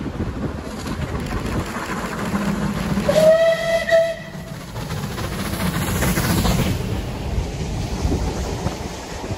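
Steam locomotive passing at speed with a train of coaches, giving one whistle blast about a second long around three seconds in, a single tone that bends up slightly as it opens. The locomotive's running noise swells as it passes, then coach wheels click over the rail joints.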